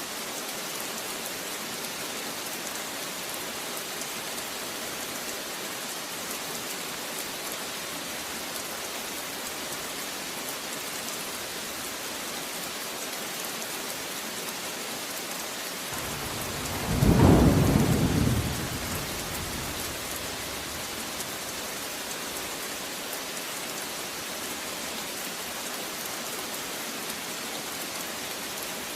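Heavy rain falling steadily as an even hiss. Just past the middle, a single clap of thunder swells up, peaks and rumbles away over about three seconds.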